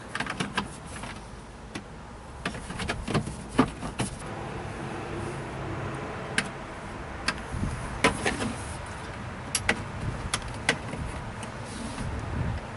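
Plastic steering-column cover being fitted back on a Ford F550: irregular sharp clicks and knocks of the plastic trim being handled and snapped into place, over a steady low hum.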